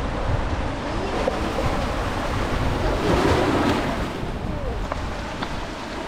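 Sea waves breaking and washing up the beach, with wind buffeting the microphone; a wave surges louder about three seconds in.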